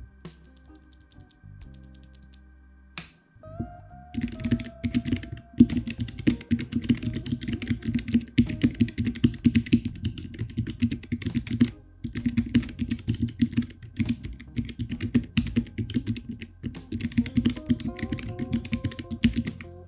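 Typing on a Totem split ergonomic keyboard with Kailh Choc low-profile v1 Robin switches: two short quick runs of light clicks at first, then fast continuous keystroke clacking from about four seconds in, with brief pauses about twelve and sixteen seconds in.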